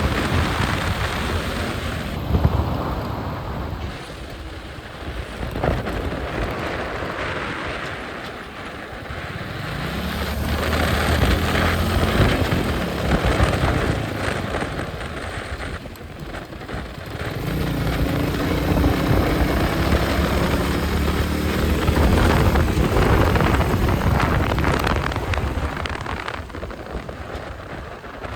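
Royal Enfield Meteor 350's single-cylinder engine and exhaust under way on the road, twice pulling up through the revs with a rising pitch and easing off in between, with wind rushing over the microphone.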